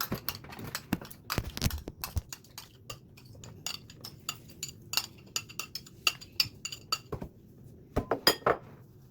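Kitchen utensil clinking and tapping against a mixing bowl and dishes, an irregular string of sharp clinks with a few duller knocks, as butter is scraped into the batter bowl.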